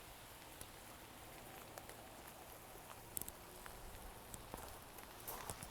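Light rain falling: a faint steady hiss with scattered sharp ticks of drops.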